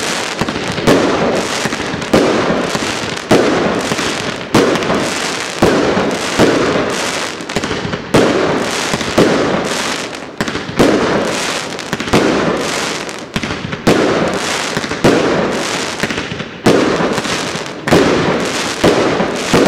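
Firework cake (Zena Warrior Collection 'Zhangfei') firing shot after shot, about one a second, each loud bang followed by a spray of crackling from the crackling chrysanthemum effects.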